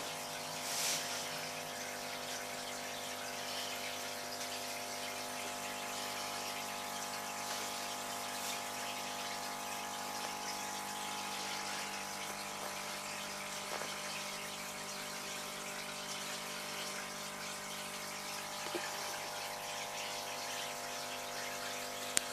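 Aquarium pump running with a steady hum of several tones over a faint rush of water.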